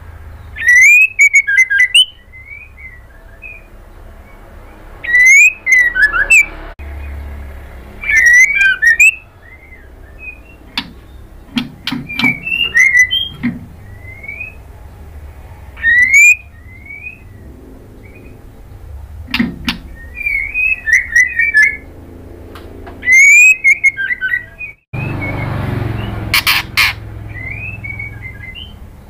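White-rumped shama singing in short bursts of loud, fast whistled phrases with sweeping notes, repeated every few seconds.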